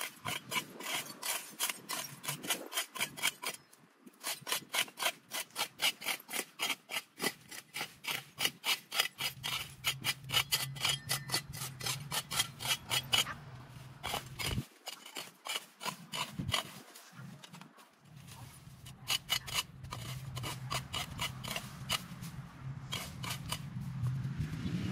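A hand tool scraping in quick rhythmic strokes, about four a second, with a couple of short pauses. A low steady hum comes in about nine seconds in.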